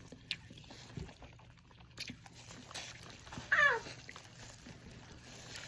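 A dog whining once, a short whine that falls in pitch, begging for food.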